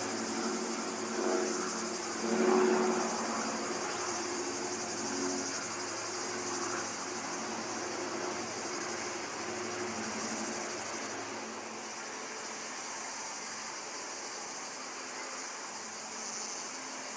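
Steady high-pitched buzzing of cicadas, with a low engine drone under it that swells briefly a couple of seconds in and fades away about ten seconds in.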